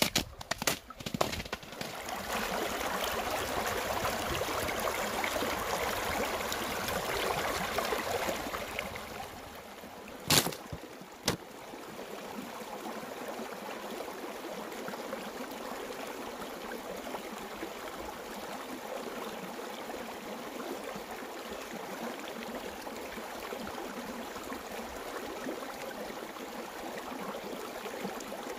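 A shallow mountain stream running and gurgling over rocks, louder for the first several seconds and then steady. A few footstep clicks come at the very start, and two sharp knocks come about ten seconds in.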